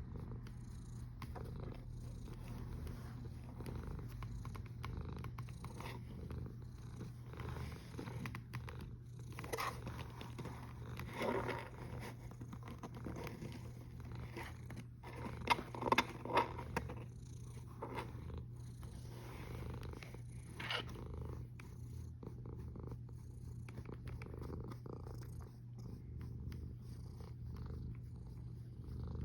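Domestic cat's steady, continuous low rumble, heard close up, the kind of sound a sleeping cat makes while purring or snoring. A few brief louder noises break in near the middle, the loudest a quick cluster of three.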